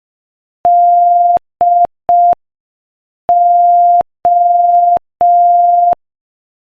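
Morse code sent at 5 words per minute as a steady, pure mid-pitched beep keyed on and off: dah-di-dit, a pause, then dah-dah-dah, the letters D and O.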